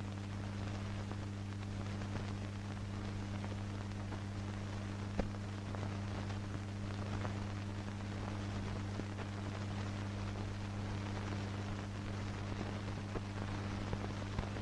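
Steady low hum under hiss and crackle, with a few sharp clicks: the background noise of an old film soundtrack with no narration or music.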